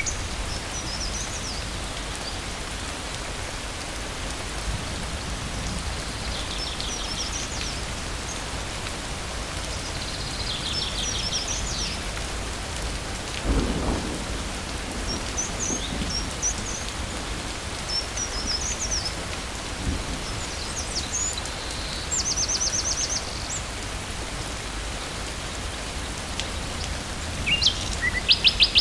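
Steady rain in a forest, with birds calling now and then in short, fast high trills and chirps. A brief low rumble of thunder comes a little before halfway.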